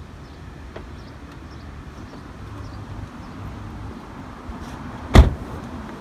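A car door slamming shut once, sharply and loudly, about five seconds in, over a steady low outdoor hum.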